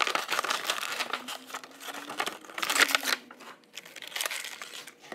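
Clear plastic toy packaging crinkling and crackling as it is pulled and handled, coming out of a cardboard box. The crackle is irregular and is loudest a little under three seconds in.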